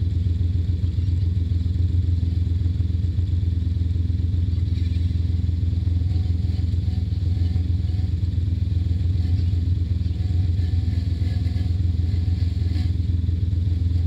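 Polaris RZR side-by-side's engine idling steadily with a low, even pulsing hum, the machine standing still.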